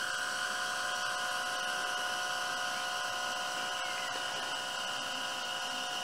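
Celestron 8 SE single-arm mount's motors slewing at top speed (rate 9), turning the fork arm: a steady motor-and-gear whine made of several even tones.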